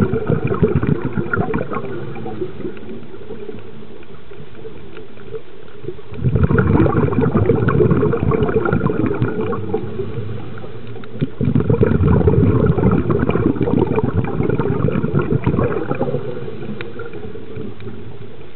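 Underwater bubbling and gurgling water, dense with small crackles. It swells into two long spells of several seconds each, a little past a third of the way in, then settles back to a steady low wash.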